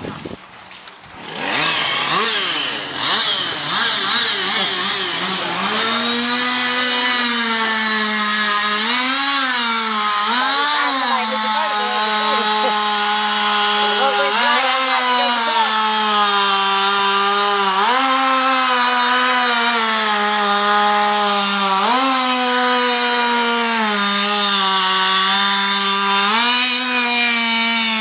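Chainsaw running near full throttle and cutting wood, coming in about two seconds in. Its pitch sags and recovers every few seconds as the chain loads up in the cut.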